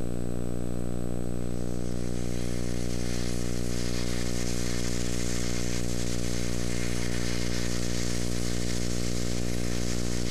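Steady electrical buzz with many overtones under tape hiss, from a VHS tape playing back over a title card; the hiss grows stronger about two seconds in.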